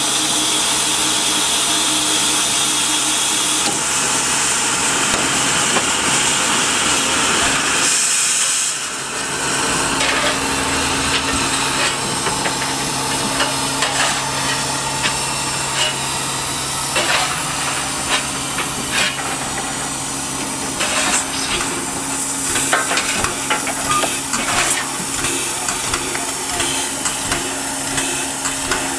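Standing steam locomotive (NM25) hissing steam, over a steady low hum. From about nine seconds in, scattered knocks and clanks sound over the hiss.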